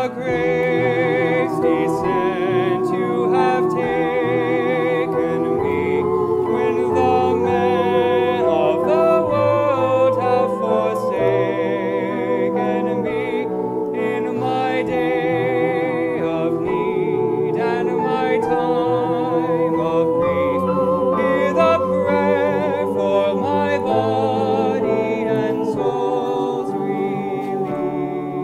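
Small mixed choir of men and women singing a hymn-like anthem in parts, the voices held with vibrato over piano accompaniment. It is a virtual choir, each singer recorded separately at home and mixed together.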